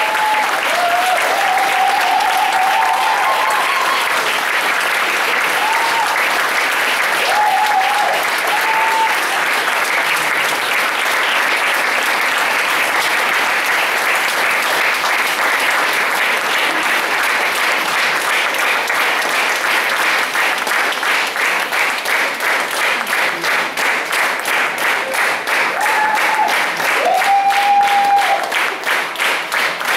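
Audience applauding, the clapping turning about two-thirds of the way through into steady rhythmic clapping in unison at about two to three claps a second.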